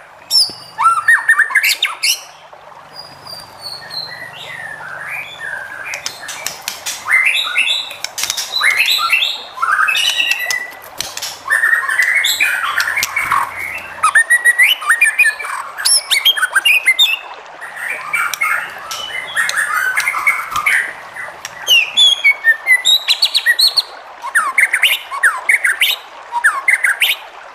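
White-rumped shama (murai batu) in full song: a fast, varied stream of loud whistles, chirps, sweeps and harsh rattling notes, delivered in phrases with short gaps between them.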